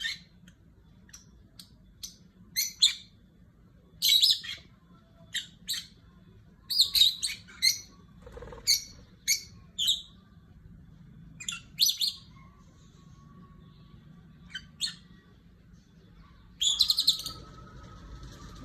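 Pet cockatiels chirping: a string of short calls at irregular intervals, with one longer call near the end.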